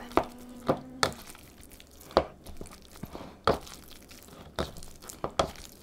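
Potato masher mashing cooked pinto beans in a plastic bowl: irregular soft knocks, about one a second, as the masher is pressed down through the beans.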